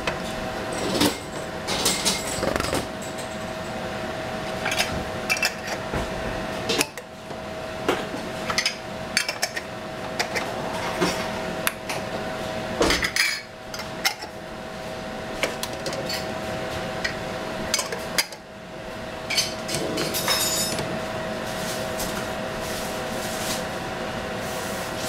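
Glass jars with metal screw-on lids being closed and set down on a metal steamer insert in a pan: scattered clinks and knocks, over a steady background hum. The handling stops a few seconds before the end, leaving the hum.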